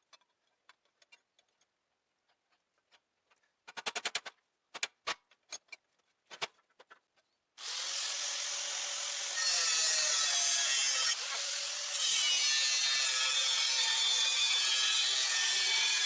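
Sharp clicks and a quick rattle of metal parts being handled. About halfway through, a power tool starts up working metal and runs with a steady hissing, grinding noise, growing louder a couple of seconds later and easing off once, briefly.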